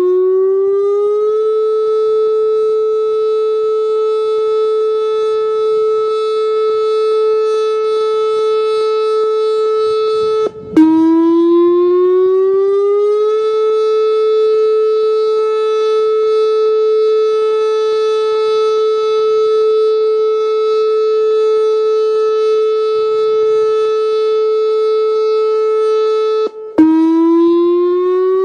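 Whelen 2906 electronic warning siren sounding its steady alert tone, harsh and clipping badly. The tone breaks off with a click about ten seconds in and again near the end. Each time it restarts lower and glides up in pitch over about two seconds before holding steady.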